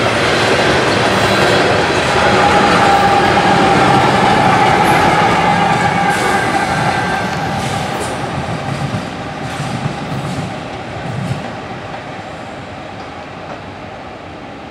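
Loaded CSX coal train rolling past: steel wheels on rail rumble and clatter, with a steady wheel squeal for several seconds starting about two seconds in. The noise then fades steadily as the end of the train and its locomotives move away.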